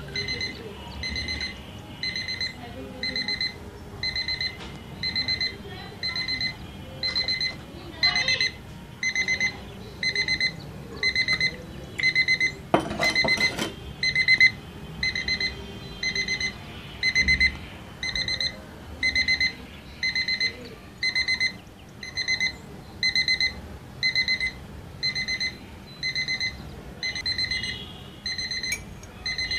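Battery quartz alarm clock's buzzer beeping in repeated short groups of high-pitched beeps, about one group a second. Water in the glass bridges the two wire probes and sets the alarm off, the signal that the water level has been reached. A short burst of noise breaks in about halfway through.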